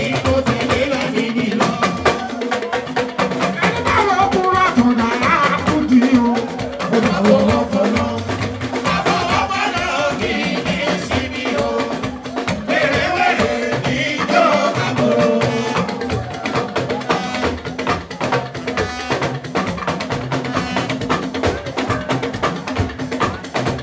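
Live Fuji band music with drums and percussion keeping a steady, busy beat, and a voice singing at times over it.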